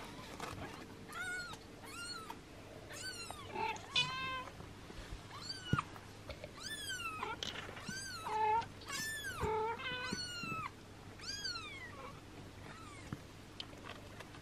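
A six-day-old kitten mewing over and over: a long string of high, thin cries, each rising and then falling in pitch. They stop about eleven seconds in.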